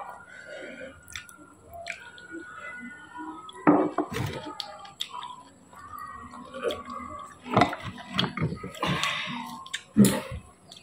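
Eating at a table: chewing, with small clicks and scrapes of a knife against food and plate, in irregular bursts. The loudest bursts come about four seconds in and near the end.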